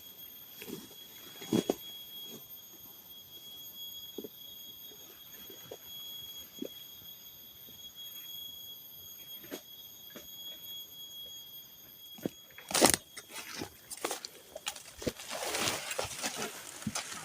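A steady high-pitched forest insect drone, with scattered snaps and knocks from someone working with branches. A loud crack comes about 13 seconds in, and the drone stops at the same moment. Rustling of leaves and branches follows.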